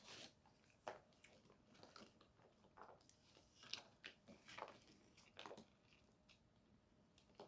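Faint chewing close to the microphone: a scatter of soft crunches and wet mouth clicks at irregular intervals.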